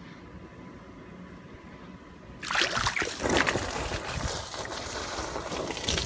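Water splashing and sloshing loudly in sudden, uneven gushes, starting about two and a half seconds in, as the pool vacuum hose is worked at the water to get a siphon going.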